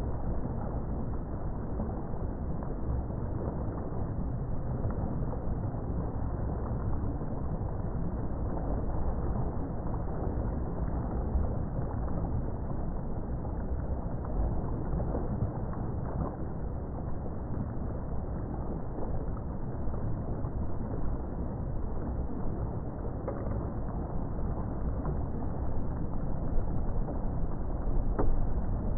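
Boat under way: a steady low rush of churning water along the hull and in the wake.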